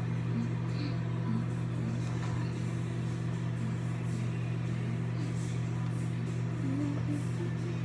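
Microwave oven running mid-cycle, a steady low hum.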